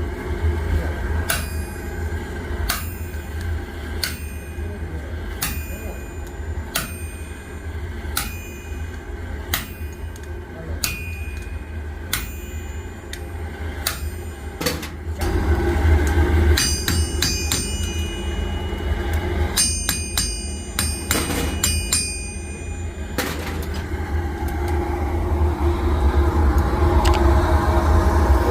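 Hand hammer striking hot metal on an anvil, each blow ringing out, at an even pace of about one blow every second and a half, then a faster run of ringing blows before the hammering stops. A steady low hum runs underneath.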